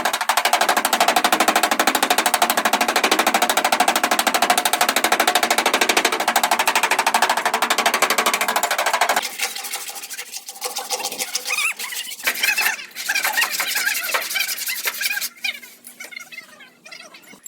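Rapid, evenly spaced hammering of an air tool working on metal for about nine seconds, then it stops. Quieter, irregular knocks and clatter follow.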